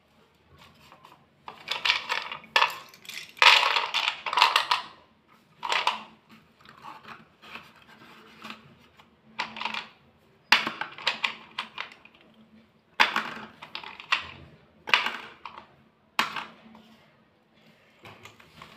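Slate pencil sticks clattering and clicking against one another and the plastic tray as they are handled and sorted, in irregular bursts of sharp, crunchy clicks.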